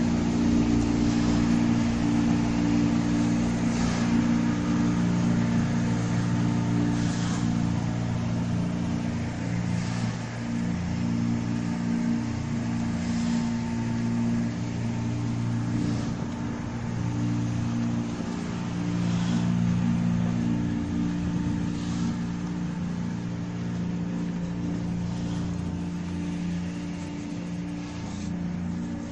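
Machinery of a paper egg tray production line running with a steady, low, pitched drone that shifts slightly in pitch now and then. A faint short tick comes about every three seconds.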